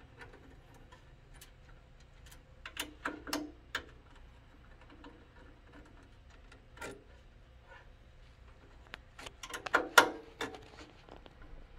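Small clicks and taps of a 2.5 mm hex driver on screws as a circuit board is unscrewed. The clicks come scattered, with a louder cluster about three seconds in and the loudest run just before and around ten seconds.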